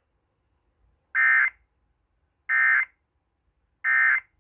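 Emergency Alert System end-of-message code: three short, high-pitched digital data bursts about a second and a half apart, signalling the end of the severe thunderstorm warning broadcast.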